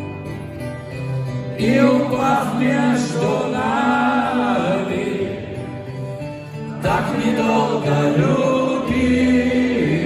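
Live band music played through a hall PA: a steady guitar-led accompaniment with a wavering melody line over it in two long phrases, no words heard.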